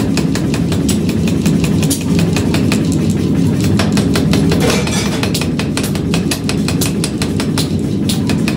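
A 50 kg mechanical power hammer running and striking red-hot steel in rapid repeated blows, several a second, over the steady rumble of its flywheel drive.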